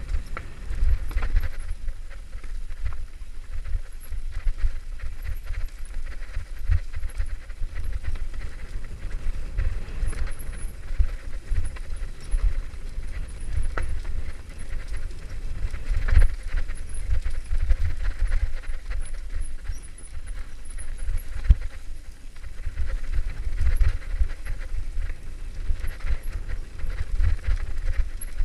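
Mountain bike descending a stony, leaf-covered forest singletrack, picked up by a camera riding along with it: a steady low rumble of wind and vibration, with tyres crunching over dirt and stones and the bike rattling and clattering over bumps all the way through.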